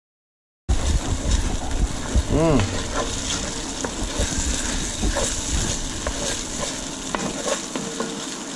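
A thick étouffée base sizzling in a pot while a spoon stirs it and scrapes the bottom, with scattered clicks and knocks from the stirring. The sound starts abruptly just under a second in, and a brief wavering pitched sound comes about two seconds in.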